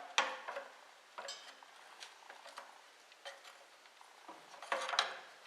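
Scattered metallic clinks and knocks of tools and parts being handled while setting up an oil change, irregularly about a second apart, with the loudest pair near the end.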